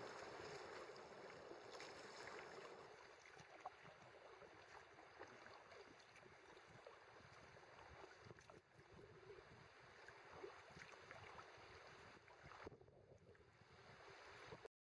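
River water rushing and splashing around a kayak's bow, heard close up from the boat, loudest at first in a white-water riffle and then quieter on calmer water, with small splashes and ticks throughout. The sound cuts off suddenly near the end.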